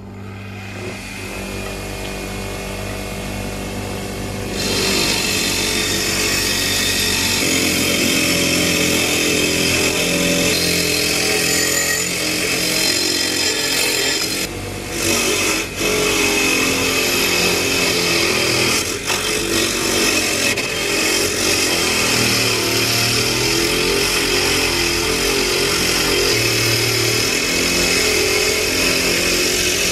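Bench grinder with a wire brush wheel running, then from about four and a half seconds in the spinning brush scrubbing rust off the iron parts of an antique charcoal iron: a loud, steady scratching hiss over the motor, with a few brief breaks where the piece comes off the wheel.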